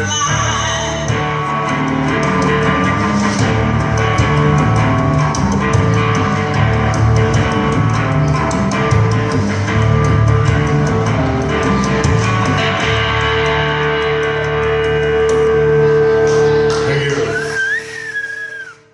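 Blues-rock band playing: electric guitar, bass and drums over a long held note, building to the song's final bars. The music falls away near the end, leaving a brief wavering high tone before it stops.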